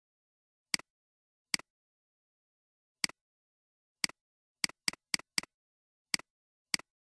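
Computer mouse button clicks, each a quick press-and-release double tick, about ten of them at uneven intervals with a quick run of four around five seconds in, against dead silence between them.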